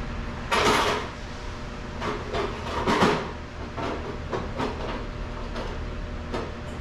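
Tools being rummaged for: a run of short scrapes and clattering knocks, loudest about half a second in and again about three seconds in, with smaller ones after, over a steady shop hum.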